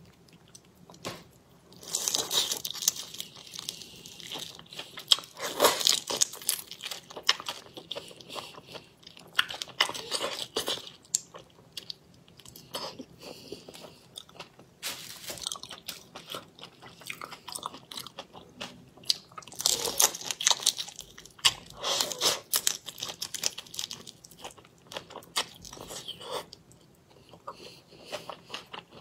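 Crunching and chewing of raw marinated shrimp, in crackly bouts of a second or two, with quieter chewing between.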